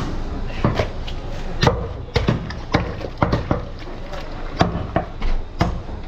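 Butcher's knife striking a wooden log chopping block as goat meat is cut: an irregular run of sharp knocks, about two a second, some in quick pairs.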